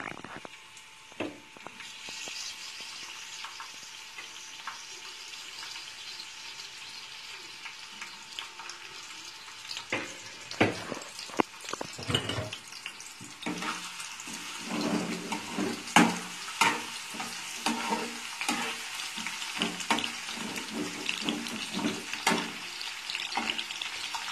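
Sliced garlic sizzling in hot canola oil in a frying pan: a steady hiss with crackling and popping that grows busier and louder about halfway through.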